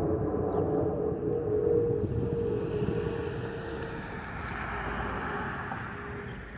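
Airbus A319 passing overhead: its CFM56 engines rumble, over which sounds a steady whistle, two close tones, from the fuel overpressure protector (FOPP) vents under the wings. The whistle is strongest in the first half and fades as the rushing jet noise carries on.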